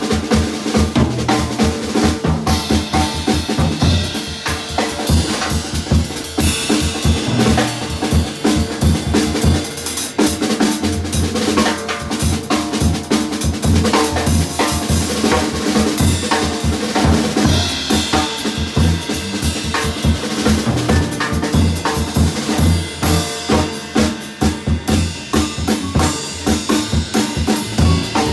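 Small jazz combo playing live, the drum kit most prominent with snare, rimshots and bass drum over upright double bass, piano and hollow-body electric guitar.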